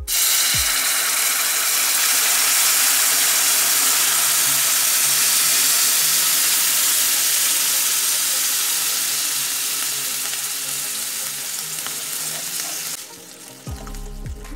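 Hot sugar syrup poured into semolina roasted in ghee, hissing and sizzling loudly as it hits the hot pan. The sizzle starts suddenly, slowly dies down, and falls away about thirteen seconds in. Background music comes in near the end.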